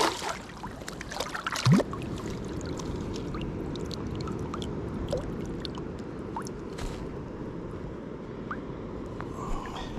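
Shallow water splashing and gurgling, with a couple of louder splashes in the first two seconds over a steady low rumble.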